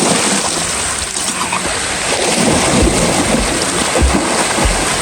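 Waterfall's water rushing, a loud steady wash of noise, with a few low thuds in the second half.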